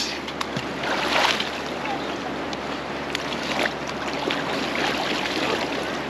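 Small waves washing over a shallow reef shore and water splashing around a person wading through it, with a louder rush of water about a second in.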